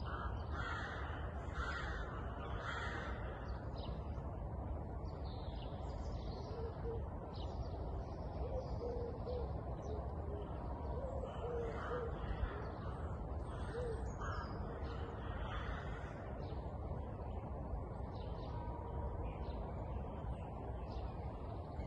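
Wild birds calling outdoors, with harsh crow-like calls repeating over the first few seconds and a few low hooting notes in the middle, over a steady low rumble of background noise.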